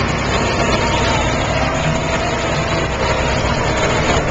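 Humvee running under way over snowy ground, a loud steady engine and road rumble with a faint steady whine over it.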